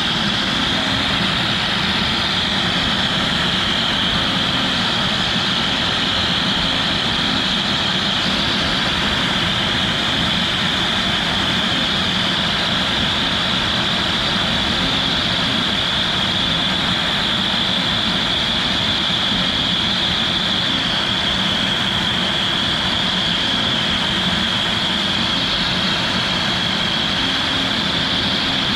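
CNC router spindle running with a steady high whine as a 45° V-bit carves PVC.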